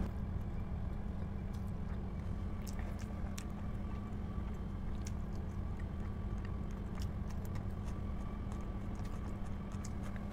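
Close-up chewing of a mouthful of biryani, with small wet mouth clicks and smacks scattered throughout. A steady low hum runs underneath.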